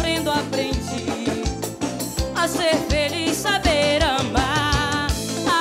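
Live band playing upbeat dance music, with a steady thumping drum beat under a wavering, bending melodic lead.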